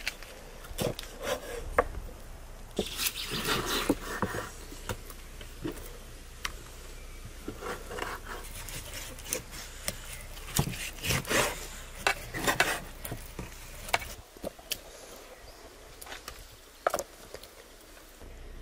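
Cooking preparation: utensils and dishes knocking and clicking at an irregular pace, with longer stretches of scraping or rubbing about three seconds in and again around eleven to thirteen seconds.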